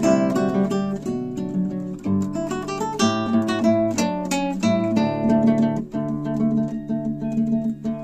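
Acoustic guitar music: plucked notes and chords in a steady run.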